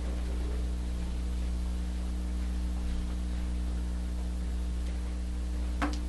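Steady low electrical mains hum with a faint hiss, and one short click near the end.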